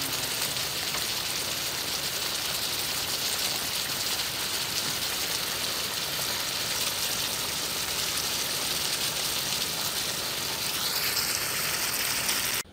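Steady, even sizzling hiss of crab cooking in a hot pan. It stops abruptly at the end.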